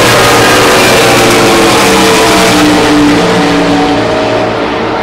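ARCA stock cars' V8 engines at full throttle as they pass down the front straight, loud, the engine notes falling in pitch as they go by and fading toward the end.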